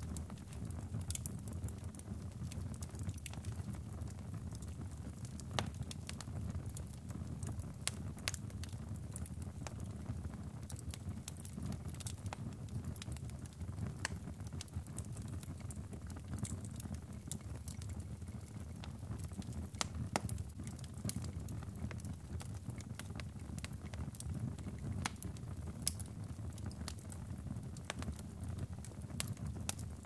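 Wood fire burning in a fireplace: a steady low rumble of flames with sharp crackles and pops at irregular intervals, a few of them louder than the rest.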